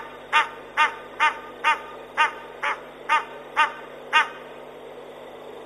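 An animal calling: a regular series of about ten short calls, roughly two a second, each rising and falling in pitch, that stops a little over four seconds in, leaving a steady hiss.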